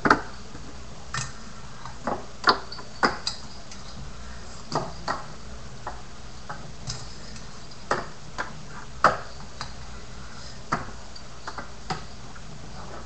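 Irregular sharp clicks and taps of a finger BMX, a toy bike, knocking against the desk and ramp as it is ridden by hand, coming a half second to a second and a half apart. A steady low hum runs underneath.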